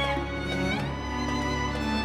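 Background music led by a violin playing slow, held notes over a sustained low drone.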